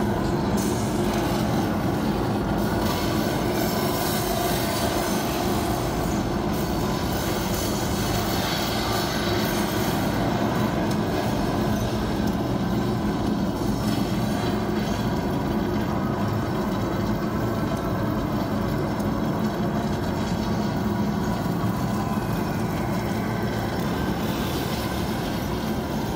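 A light show's sound effects over outdoor loudspeakers: a steady, dense mechanical rumble with a low hum under it, at an even loudness.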